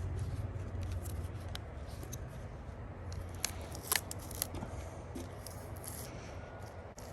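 Intermittent short scrapes and clicks of a hand tool working wood, over a steady low hum.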